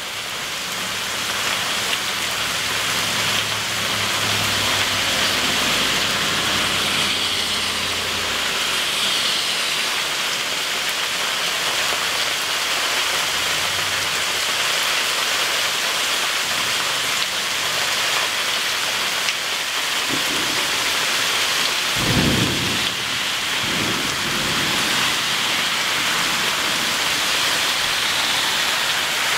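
Steady heavy rain falling in a thunderstorm. Low rumbles of thunder sound in the first several seconds, and a short, louder low rumble comes about two-thirds of the way through.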